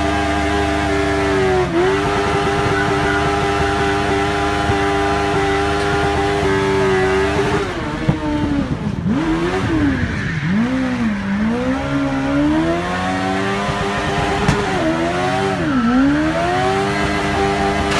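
Kawasaki ZX-9R inline-four motorcycle engine in a Mitsubishi Minica kei car, running hard at high revs while the car is drifted. The revs hold high with a brief dip about two seconds in, swing down and up several times between about eight and thirteen seconds in, dip again near sixteen seconds, then climb back and hold high.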